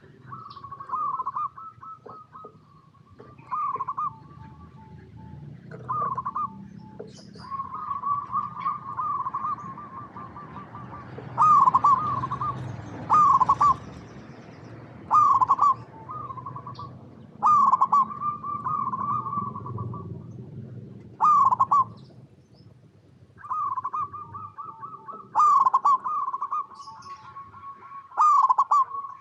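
Zebra dove cooing: repeated phrases of quick stuttering coos, some drawn out into a long trilling run. The louder phrases come every two to four seconds over a low background rumble.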